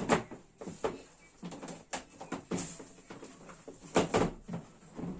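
Handling noises: a string of separate knocks and clicks, the loudest about four seconds in.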